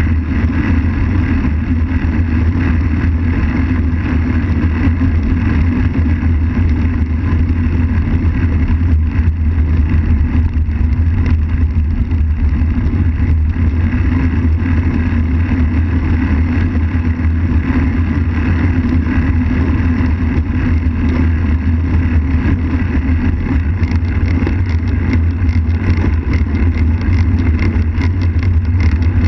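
Steady wind noise buffeting the microphone of a bicycle-mounted action camera, over the low rumble of road-bike tyres rolling on asphalt.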